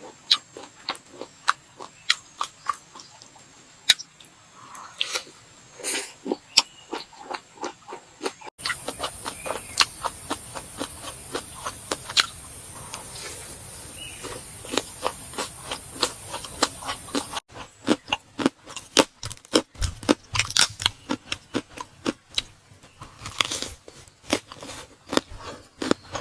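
Close-miked eating sounds: irregular crunching and chewing of crispy food, in three edited stretches.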